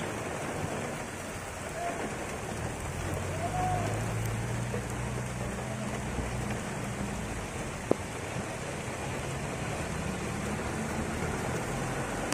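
Heavy rain falling steadily on a street and wet pavement. A car engine passes at a few seconds in, and a single sharp click comes about eight seconds in.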